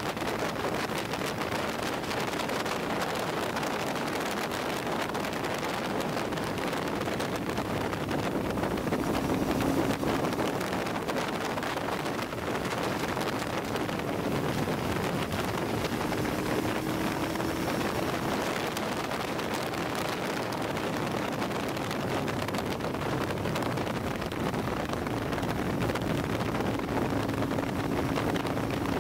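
Wind rushing over the microphone of a sport motorcycle riding at steady road speed, with the engine's low note showing through faintly now and then.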